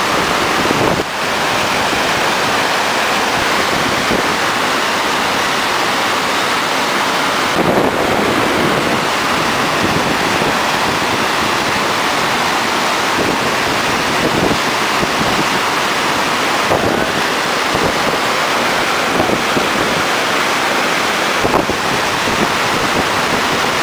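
Steady rush of white water pouring over a river weir and churning in the stopper wave below it.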